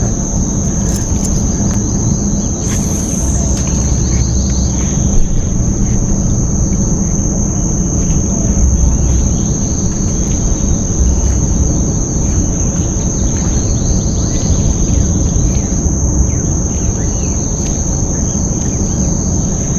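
Steady high-pitched buzz of insects from the mangroves, held without a break, over a constant low rumble.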